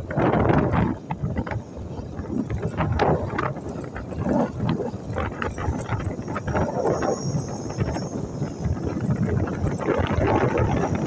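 Wind buffeting a phone's microphone outdoors in irregular gusts.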